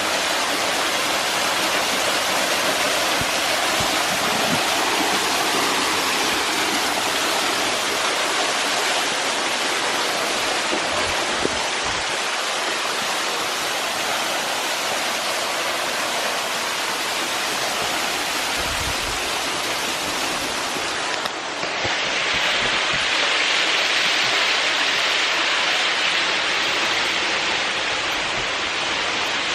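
Small waterfall pouring into a creek: a steady rushing of falling water. About 21 seconds in, the sound changes abruptly to a brighter, hissier rush.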